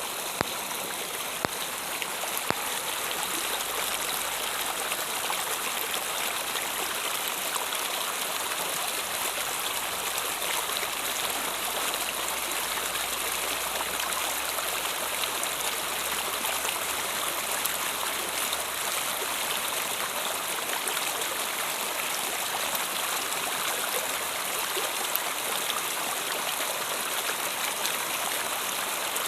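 River water running steadily, a continuous rushing, babbling flow, with a few brief sharp ticks in the first few seconds.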